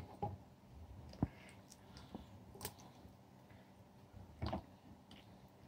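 A few faint, scattered knocks and clicks as chunks of raw mutton are set by hand into an earthenware pot, the sharpest a little over a second in.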